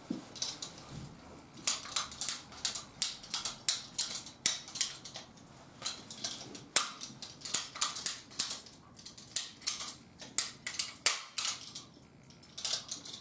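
Vessel ratchet rivet gun setting a 4.8 mm blind rivet: a run of sharp ratchet clicks as the handle is squeezed again and again to pull the mandrel, with brief pauses between squeezes.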